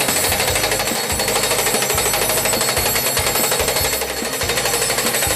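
Turchi post driver's hydraulic hammer pounding a flat-ended wooden post into gravel ground. The blows come in a rapid, steady stream, many per second.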